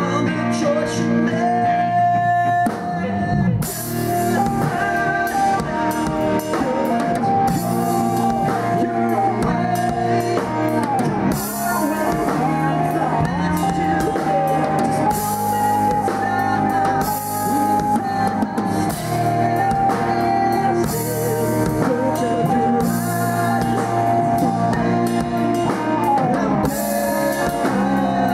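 A band playing rock music live: a sustained melody line over held chords, with the Pearl drum kit coming in about three and a half seconds in and cymbals struck at a steady pulse after that.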